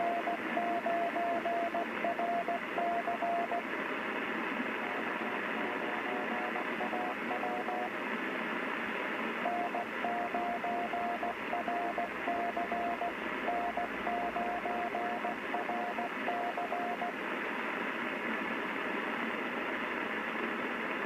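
Morse code (CW) received on a Yaesu FRG-7700 shortwave receiver: a steady mid-pitched beep keyed on and off in dots and dashes over a bed of static hiss. Strong and weaker signals take turns, stations sending back and forth in what the listener takes for an amateur radio net, and the last few seconds are static alone.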